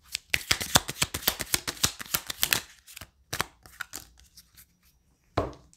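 A deck of tarot cards being shuffled by hand: a quick run of soft card clicks and flicks for about two and a half seconds, then slower, scattered clicks.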